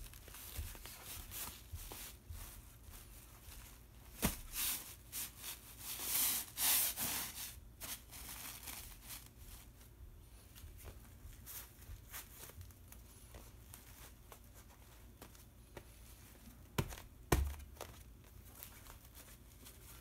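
Faint rustling and rubbing of paper stencils under a hand being smoothed across a silkscreen's mesh, with a few light knocks on the wooden frame, about four seconds in and twice near the end.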